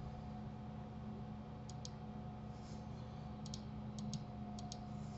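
Computer mouse button clicks, four quick pairs of clicks starting under two seconds in, over a steady faint electrical hum.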